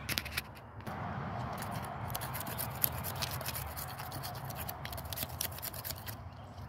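Knife blade scraping bark and wood from a pine trunk in many rapid short strokes, heard as a dense run of quick scratchy clicks.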